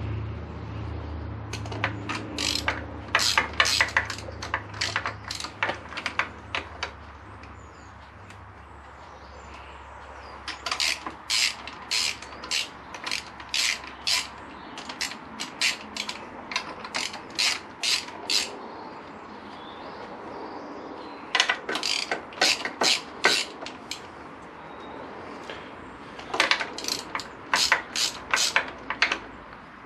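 Hand ratchet clicking in four bouts of quick clicks as it is worked back and forth, loosening the camshaft bearing cover bolts on a Honda VFR800 VTEC engine a little at a time while the valve spring pressure is relieved.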